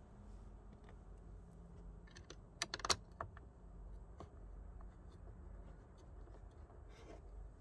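Faint low hum with a few light clicks and taps of small parts being handled, a speaker and its screws being fitted into a door panel. A quick cluster of clicks comes about two and a half to three seconds in, and there is one more near the end.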